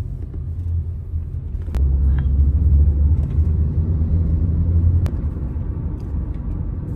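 Car running on the road, a low rumble of engine and road noise that swells louder for a few seconds in the middle. Two sharp clicks stand out from it.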